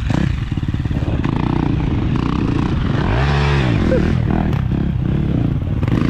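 Dirt bike engine running hard as the bike rides past on a dirt race track. The pitch swells up and back down about three seconds in.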